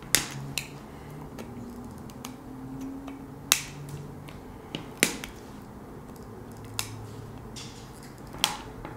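Wire cutters snipping the excess resistor leads off a soldered LED board: a sharp click for each cut, coming irregularly every second or so.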